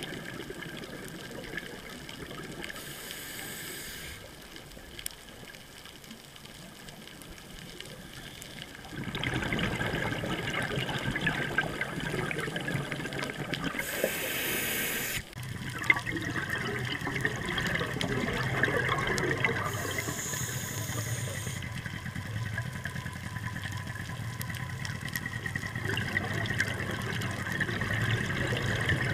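Underwater sound picked up by a dive camera in its housing: a steady rush of water and scuba bubbles, louder from about nine seconds in, with three short hisses.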